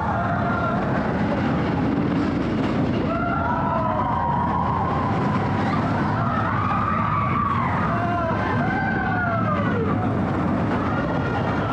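Expedition Everest roller coaster train running on its track with a loud, steady rumble, while riders let out several long rising-and-falling screams.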